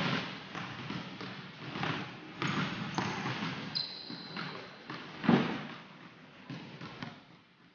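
Basketballs bouncing on a hardwood gym floor, each thud echoing through the large hall. There is a brief high squeak about four seconds in and a louder thump about five seconds in.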